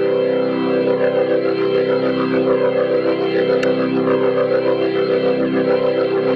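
Dense, organ-like drone of many steady held tones: a cartoon soundtrack distorted by stacked audio effects.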